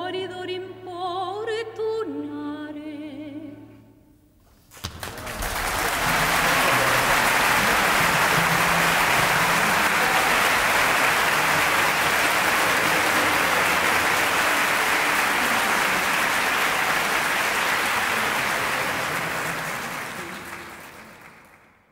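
Soprano with orchestra singing the closing phrase of an operatic aria over a held low note, ending about four seconds in. After a brief pause, a theatre audience applauds steadily, and the applause fades out near the end.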